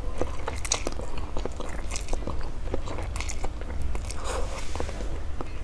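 A person eating Nissin spicy chicken dry instant noodles: noodles slurped off chopsticks in several short hissy pulls, with wet chewing and lip smacks in between.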